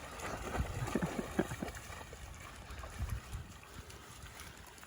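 A dog wading and splashing in shallow water: a cluster of small splashes in the first couple of seconds, then quieter.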